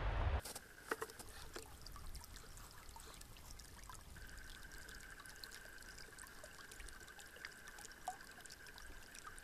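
The low rumble of an ice-blasting explosion cuts off abruptly in the first half second. Then comes faint river water trickling at the edge of broken ice, with many small ticks and crackles. A faint steady high tone joins about four seconds in.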